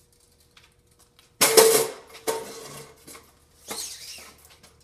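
Steel tape measure blade being pulled out, in three short rattling bursts, the first the loudest.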